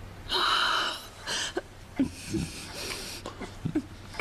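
A loud, breathy gasp about half a second in, then a shorter breath. A couple then kisses, with soft short lip sounds and breathing.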